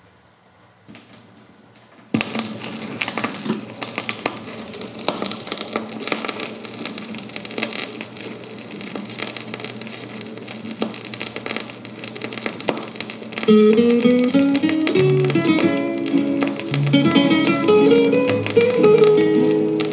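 A vinyl record playing on a restored Quasar Motorola record player through its two speaker cabinets. The music starts suddenly about two seconds in, soft and mixed with record-surface crackle and clicks. Louder plucked-guitar music comes in about two-thirds of the way through.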